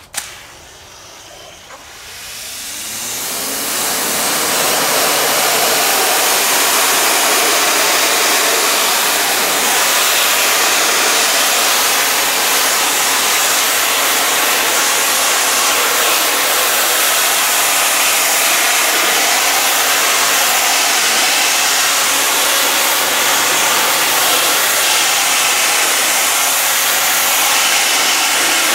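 Greenworks Pro 2200 PSI electric pressure washer: after a click, its motor and pump start up with a rising hum about two seconds in, then run steadily under the loud hiss of the spray jet washing vinyl siding.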